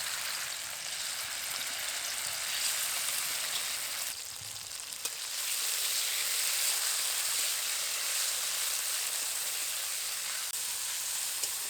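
Small pieces of spice-marinated chicken frying in hot oil in a kadai, with a steady sizzle that dips briefly about four seconds in.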